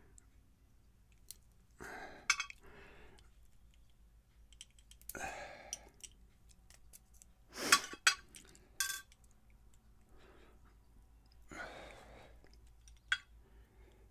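Scattered sharp metallic clicks and clinks of a pin-tumbler lock and its tools being handled while the lock is worked apart, the loudest a pair of clicks near the middle. Three short breathy puffs come between them.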